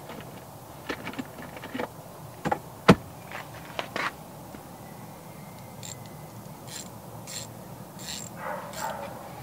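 Metal hand tools and a socket clinking and knocking at irregular intervals, with a few sharp clicks in the first half, then light scraping and rustling near the end.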